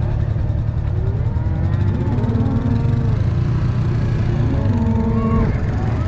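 Honda Gold Wing F6B's flat-six engine running with a steady low rumble, while cattle moo several times, the longest calls about two and five seconds in.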